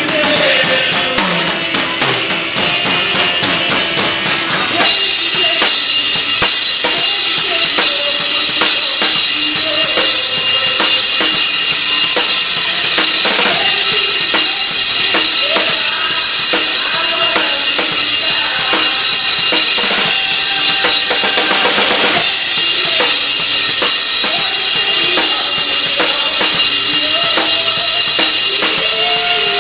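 Music from a band with a drum kit. A lighter passage with a steady ticking beat gives way about five seconds in to the full band, with bass drum, snare and cymbals, playing loudly under a melody.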